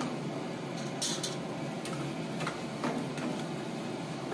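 A steel ladle stirring a kadhai of chicken in gravy and knocking against the pan in irregular clicks, over the steady roar of a gas burner. A short high hiss comes about a second in.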